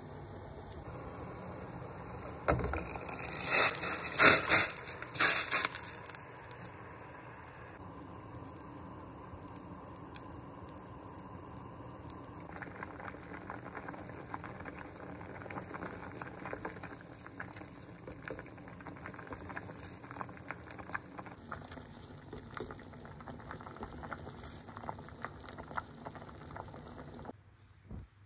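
Water in a steel pot: a few loud splashes about three to six seconds in, then steady boiling, a dense bubbling crackle as basmati rice cooks in the pot.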